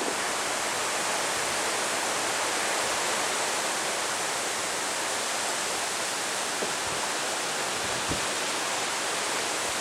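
Wind blowing steadily, an even rushing hiss with no gusts or breaks.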